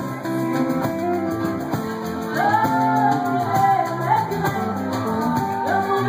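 Live folk-rock band playing: strummed guitars over drums, with vocals coming in about two seconds in.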